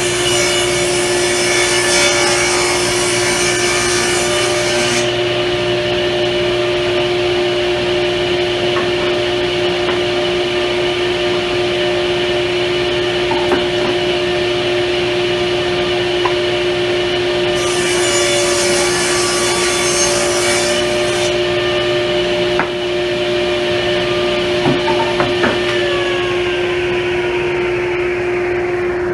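Table saw motor running steadily with a constant hum, its blade cutting through plywood twice: once at the start for about five seconds, and again for a few seconds past the middle, trimming a lip off a glued-up base. A few small knocks between the cuts.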